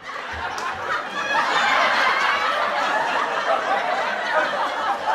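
An audience laughing together, many voices at once, loud throughout.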